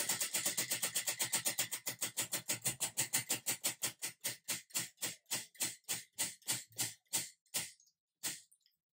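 Tabletop prize wheel spinning, its pegs clicking past the pointer flap: fast clicks, about nine a second, that slow steadily until the wheel comes to rest about eight seconds in.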